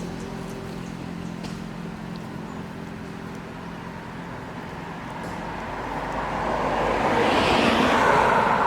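A road vehicle passing close by: a steady engine hum fades out in the first couple of seconds, then engine and tyre noise swells to a peak near the end and starts to die away.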